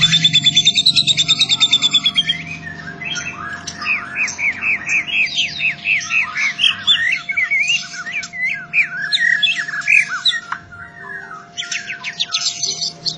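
White-rumped shama singing loudly: a fast run of rapidly repeated notes for about the first two seconds, then a long string of varied whistled phrases that slide up and down in pitch. A faint steady hum sits under the song.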